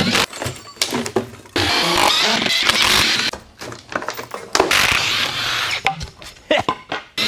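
Cordless power driver running in bursts of a second or two, backing screws out of the camper's wooden panels, with sharp clicks and clatter between the bursts.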